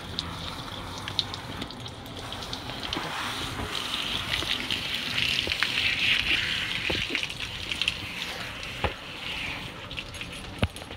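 Garden hose spray nozzle spraying water onto a Saint Bernard's wet coat: a steady hiss that grows louder in the middle, with a few small clicks.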